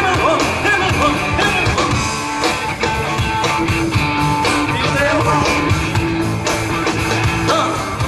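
Live rock band playing an 80s-style glam rock song, with electric guitar and drums keeping a steady beat.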